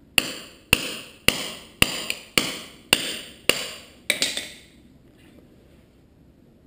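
Hammer tapping a steel socket used as a driver, eight sharp blows about two a second, each ringing briefly, seating a rubber brake caliper boot.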